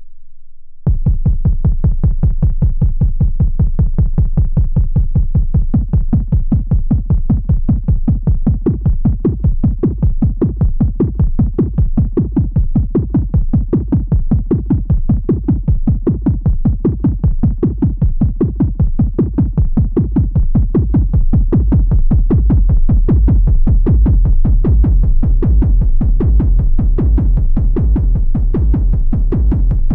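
Moog Matriarch analog synthesizer playing an arpeggio over a synthesized kick drum, a fast steady electronic beat. It starts about a second in after a brief low held tone, and the bass grows heavier and louder about two-thirds of the way through as the oscillator settings are changed.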